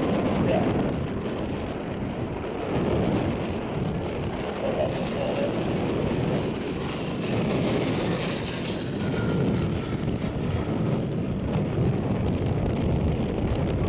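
Embraer Super Tucano turboprop aircraft flying by, a steady engine and propeller drone. A high whine falls in pitch from about six and a half to nine seconds in as an aircraft passes.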